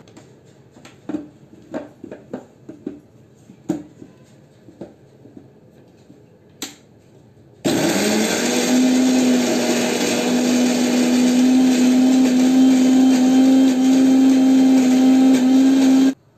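Kitchen mixer grinder (mixie) grinding roasted peanuts and niger seeds with spices. A few light clicks and knocks come first. About halfway through, the motor starts with a quickly rising whine and runs at a steady high speed for about eight seconds, then stops abruptly near the end.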